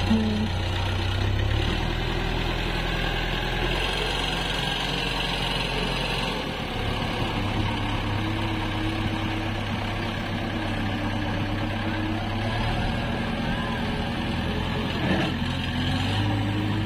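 JCB 3DX backhoe loader's diesel engine running steadily, its speed stepping up and down several times as the machine works and drives.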